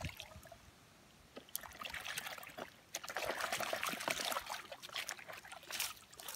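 Shallow muddy water splashing and sloshing as a plastic toy car is swished back and forth through it by hand to wash off the mud, in two spells: a short one about a second and a half in, and a longer one from about three seconds in until near the end.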